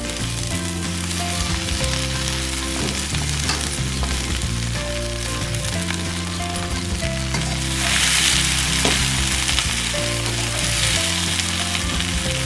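Chopped okra sizzling in hot oil in an iron wok as it is stirred with a slotted steel spatula. The sizzle swells louder about eight seconds in.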